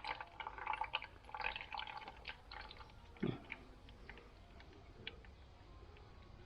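Faint trickling and dripping of old, dark brake fluid running out through a bleed hose while the brakes are bled, with one thump about three seconds in.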